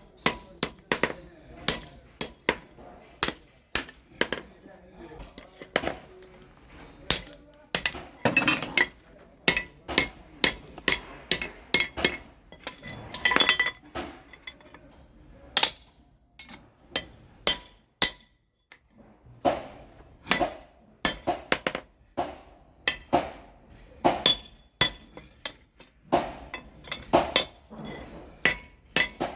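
Hand hammer striking steel on an anvil while forging a bellhook machete: a string of irregular blows, each with a bright metallic ring, with a short pause a little past the middle.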